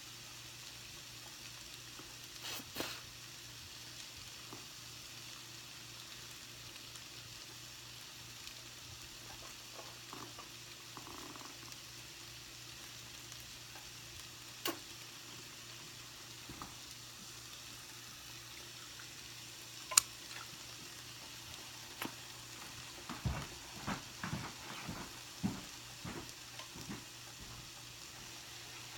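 Food frying in a pan with a steady sizzle, broken by a few sharp clicks and, near the end, a run of soft knocks.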